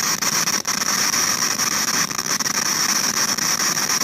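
Loud, steady digital noise coming through the sound system with no inputs connected: a harsh hiss with a bright high band and constant crackling. It is a fault in the digital audio chain of converters and console computer, which the engineer thinks comes from the computer; it sounds pretty bad.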